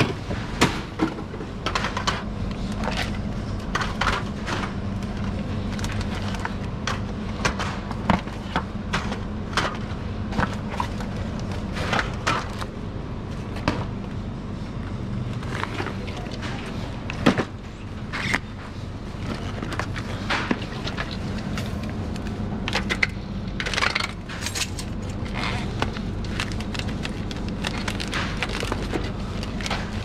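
Bottled iced coffee being stocked onto cooler shelves: frequent irregular clicks and knocks of bottles set down and slid into place, over a steady low hum.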